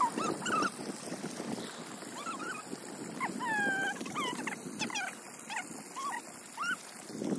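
A dog whining: a string of short, high whimpers that rise and fall in pitch, spread over several seconds, over a faint steady hiss.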